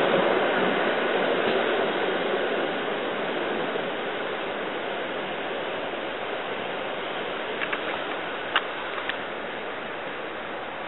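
Departing passenger train rolling away on the rails: a steady rushing noise that slowly fades, with a few short clicks near the end.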